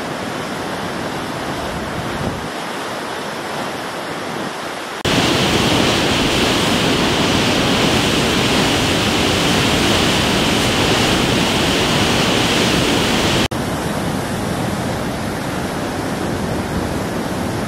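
Floodwater from a dam's flood-control release rushing and churning through the spillway outlet: a loud, steady rush of water noise. It jumps louder about five seconds in and drops back suddenly about eight seconds later.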